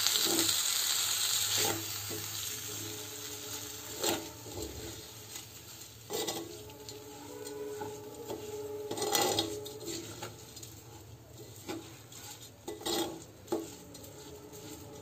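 A metal spoon stirring soaked rice and urad dal in a clay pot, with scattered scrapes and knocks against the pot and the rustle of grains. A sizzle from the hot pot is loud for the first couple of seconds, then drops away.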